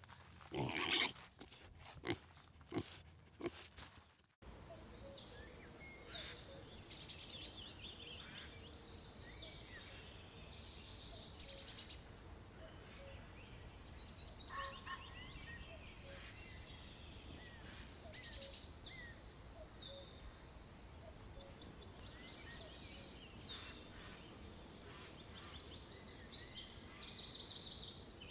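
Pig grunting for about the first four seconds. Then, after an abrupt cut, birds chirping and singing high-pitched rapid trills, a phrase every second or two over a faint steady hiss.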